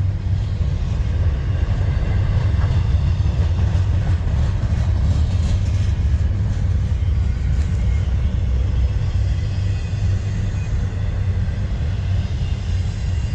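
Steady low rumble with an even hiss above it, unbroken and with no separate events standing out.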